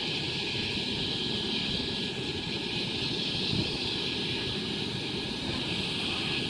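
Wind buffeting the microphone with a rough, fluttering rumble. Under it runs a steady hiss and hum from a stopped Sydney Trains H-set (OSCAR) electric train standing at the platform with its equipment running.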